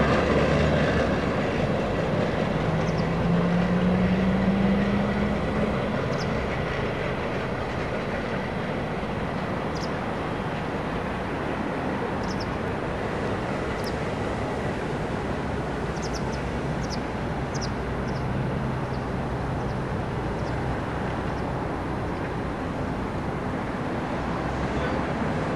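DR1A diesel multiple unit moving away, its diesel rumble fading over the first several seconds and then holding as a steady low drone. About three seconds in, an engine note rises briefly in pitch.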